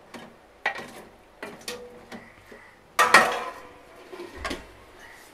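A spatula knocking and scraping against a metal cooking pot while a curry is stirred, several separate clanks with a short ring. About three seconds in comes the loudest, ringing clank as a steel lid is set onto the pot.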